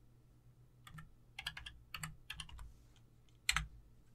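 Typing on a computer keyboard. A quick run of keystrokes starts about a second in and lasts under two seconds, then one louder keystroke comes near the end.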